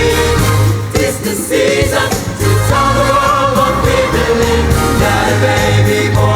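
A Christmas song: sung melody over a band backing with a steady, pulsing bass.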